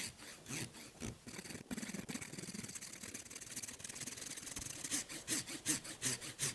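Small hand saw cutting through a branch of very hard hawthorn wood in quick back-and-forth strokes, about three a second, making a flush cut against the trunk. The strokes grow louder and more distinct over the last second and a half.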